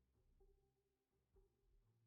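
Near silence, with very faint held music notes.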